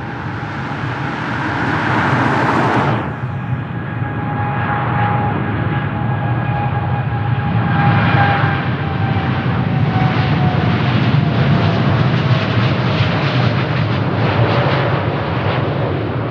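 Jet airliner engines running loud and close: a steady roar with a fan whine that slowly falls in pitch, turning to a crackling rumble in the second half.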